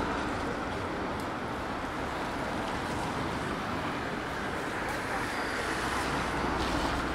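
Steady city street noise with passing traffic.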